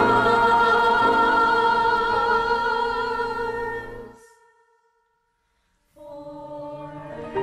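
Choir singing one long held chord that fades out about four seconds in. After a second and a half of silence, soft instrumental music begins.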